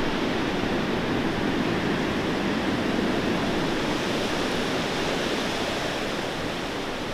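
Strong gusting blizzard wind blowing through trees: a steady rushing noise.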